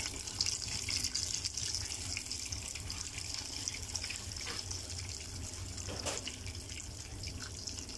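Nuggets deep-frying in a pot of hot oil: a steady sizzle of bubbling oil with small crackles.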